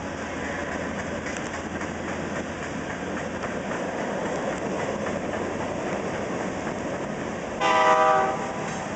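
CSX phosphate train of hopper cars rolling through a grade crossing: a steady rumble with the clack of wheels over the rails. Near the end, a loud horn sounds once for about a second.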